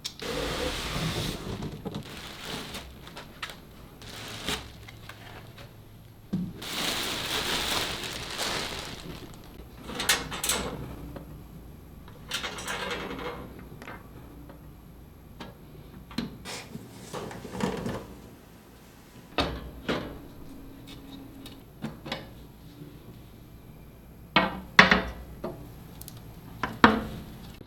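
Hands handling computer parts and their packaging: two spells of rustling or sliding near the start and about a quarter of the way in, and scattered clicks and knocks, with two sharper knocks near the end.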